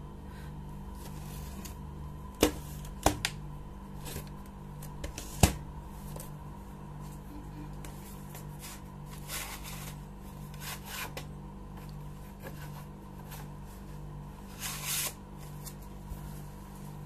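VHS videocassettes in their cases being handled and turned over: a few sharp plastic clicks and knocks in the first six seconds, then softer rubbing and rustling, over a steady low hum.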